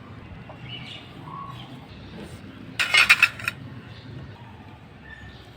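Small metal pieces clinking together in a quick rattle of several sharp strikes about three seconds in, lasting about half a second.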